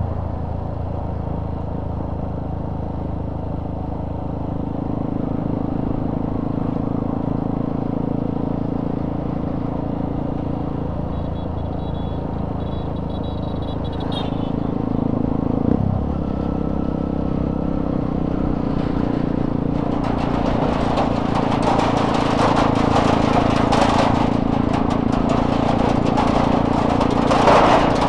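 Motorcycle engine running steadily under way. Its pitch climbs and then drops sharply about halfway through, a gear change. In the last third a loud rattling clatter joins in as the wheels run over a steel-plated bridge deck.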